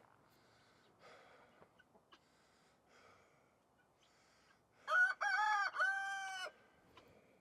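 A rooster crowing once, about five seconds in: a short rising note, then two held notes, the last drawn out for under a second.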